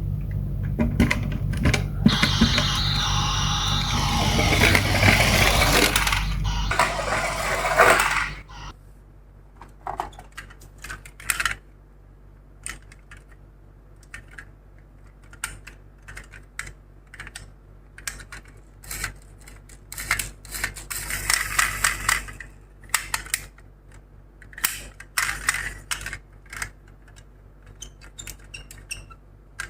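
Miniature toy ambulance and bus cars rolling down a slope: a loud rattling rush for about the first eight seconds, then a long run of scattered small clicks and clacks of hard toy parts knocking.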